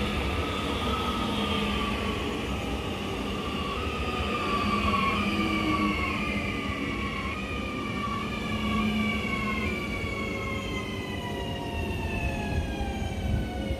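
Electric multiple unit of České dráhy class 640 passing close by. Its traction motors give a whine of several tones that falls steadily in pitch as the train slows, over a low rumble of wheels on the rails.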